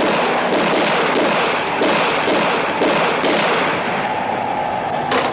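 Loud, dense crackling and popping with scattered thuds, from an action film's sound effects.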